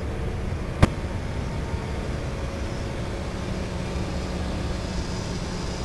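Low steady rumble of a cargo ship's engine as the ship moves slowly out of a sea lock, with a faint steady hum in it. A single sharp click about a second in.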